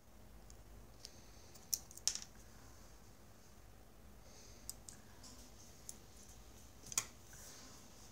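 Scattered small clicks and light rubbing of plastic parts handled in the fingers, as a polyurethane belt is worked onto the pulleys of a Vorwerk VR100 robot vacuum's side-brush motor unit. There are about five sharp clicks, the loudest about seven seconds in.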